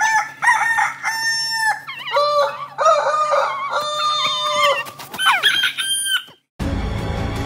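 A run of chicken clucks and crow-like calls, about six short held calls one after another. Near the end they stop and music cuts in abruptly.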